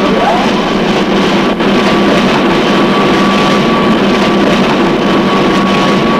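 Heavy machinery running loudly and steadily, with a constant high whine over the mechanical noise.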